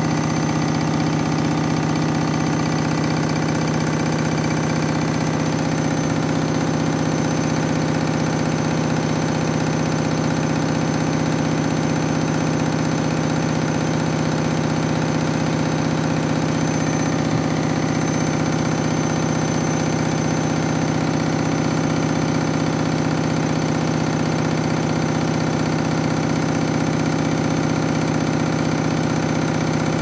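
Front-loading washing machine spinning a load of towels, its motor and drum giving a steady hum at one constant speed with no rise or fall in pitch.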